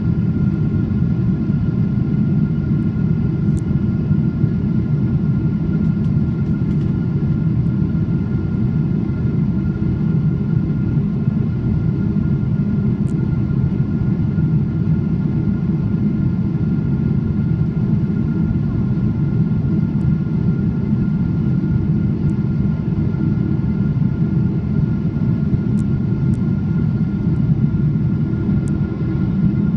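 Jet airliner cabin noise in the climb after takeoff: the steady rumbling roar of the engines and airflow over the wing, with a thin steady whine above it.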